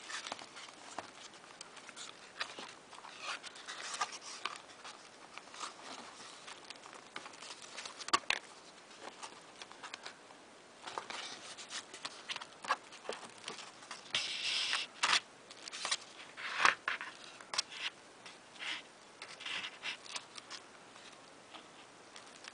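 Paper and card handled while a needle and thread are stitched through a handmade book's binding: irregular rustles, light taps and short scratchy pulls, with a few longer rustles about two-thirds of the way in.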